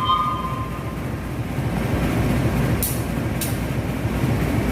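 Train running with a steady low rumble. A high steady tone stops about a second in, and two short hisses come about half a second apart near the middle.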